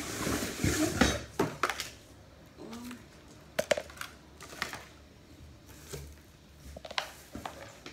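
An artificial Christmas tree section being lifted and handled: its branches rustle, with scattered clicks and knocks, busiest in the first two seconds.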